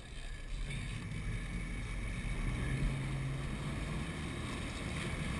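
Sport-fishing boat's inboard engines running with a steady low drone that grows louder about half a second in, with wind buffeting the microphone.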